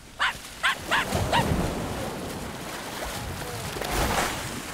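Cartoon sound effects: a few short yelping cries in the first second, then a rushing noise with a low rumble that swells to a peak near the end and begins to fade.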